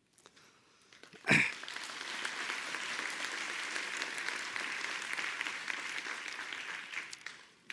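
Large audience applauding. After a moment of near silence a brief sharp sound comes about a second in, then the clapping swells quickly, holds steady and dies away near the end.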